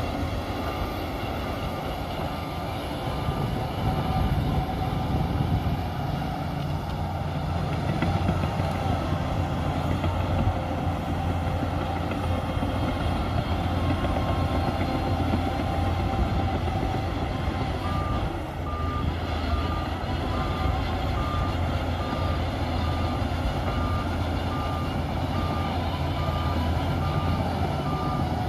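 Shantui DH17C2 bulldozer's diesel engine running steadily under load. A reversing alarm beeps evenly for the first few seconds, stops, and starts again about two-thirds of the way in, continuing to the end.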